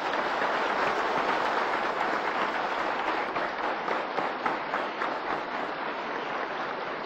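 A hall full of parliament deputies applauding: many hands clapping steadily, easing off a little near the end.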